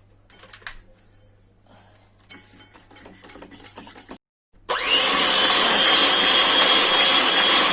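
A few faint clinks of handling, then, after a brief cut, an electric hand mixer starts and runs steadily with a high whine, beating egg yolks with lemon juice and sweetened condensed milk for the lemon cream.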